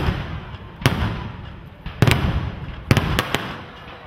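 Aerial fireworks shells bursting overhead: several sharp bangs at uneven intervals, each trailing off in a low rolling rumble.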